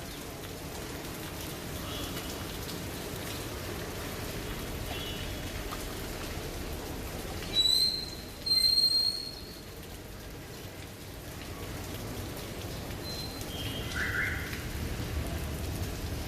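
Steady rain falling on surfaces, an even patter. About eight seconds in, two loud, short, high-pitched tones sound one after the other.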